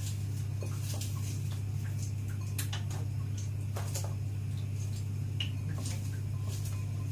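Scattered, irregular clicks and taps of a kitchen knife and sliced red onion on a plastic cutting board, over a steady low hum.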